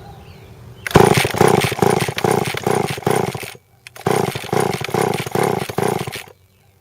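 Old Poulan Countervibe chainsaw being pull-started in two quick runs of short, jerky pulls on its recoil starter, about three pulses a second. The engine turns over without catching, which the owner takes for flooding.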